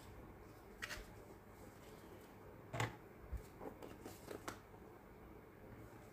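Faint light taps and clicks of small thread-wrapped cardboard craft pieces being handled and set down on a tray, about five in all, the clearest a little before halfway.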